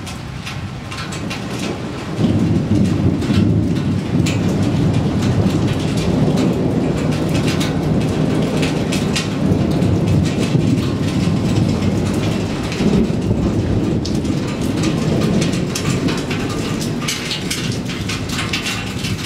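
Thunderstorm: steady rain with thunder, a long low roll that swells about two seconds in and rumbles on through the rain.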